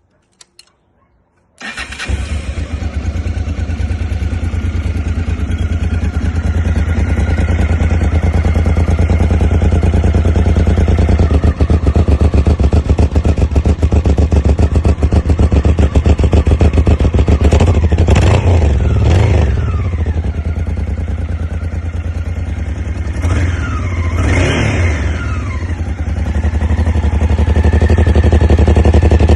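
Honda Africa Twin 750's V-twin engine with an Arrow aftermarket exhaust starting up about two seconds in after a few faint clicks, then idling with a fast, even, deep pulse. Past the middle it is revved and let fall back a few times.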